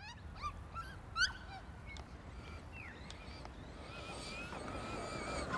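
Birds chirping with short, sliding calls and a trill. From about three and a half seconds in comes the wavering whine of a Traxxas Rustler RC truck's electric motor, growing louder as the truck runs towards the microphone over grass with its speed governor set a little over three-quarters.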